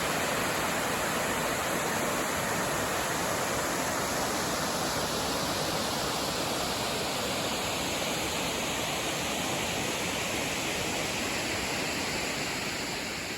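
A tall ribbon-and-cascade waterfall, about 137 feet high, rushing in a steady, even roar of falling water that eases slightly near the end.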